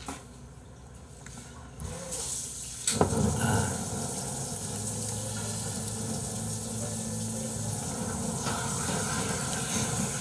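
A sharp click about three seconds in, then a steady rush of running or pouring liquid, with a faint low hum in the middle.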